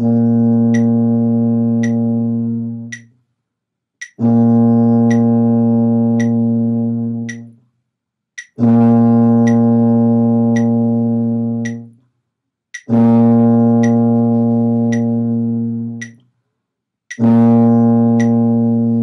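Tuba playing a sustained concert B flat on open valves, five times, each note held about three seconds with a short breath gap between. A metronome clicks steadily about once a second underneath.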